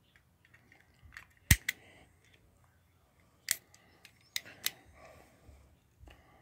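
Small plastic toy motorcycle being handled: a handful of sharp plastic clicks, the loudest about a second and a half in, with light rubbing between them.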